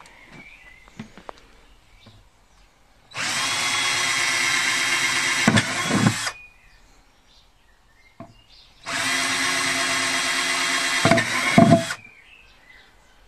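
Cordless drill running twice, about three seconds each time, as it bores drainage holes through the base of a plastic plant pot. The motor whines steadily, with a few knocks near the end of each run.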